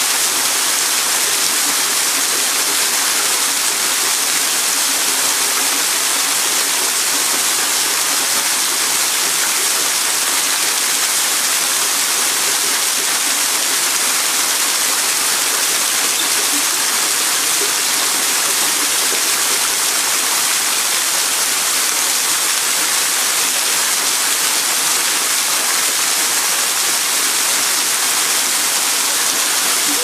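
Waterfall pouring down a rock face: a loud, steady rush of falling water and spray.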